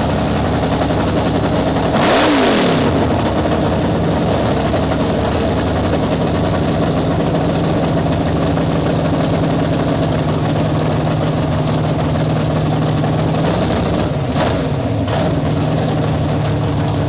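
Drag-race door car's engine idling, blipped up and back down once about two seconds in, then given two quick blips near the end.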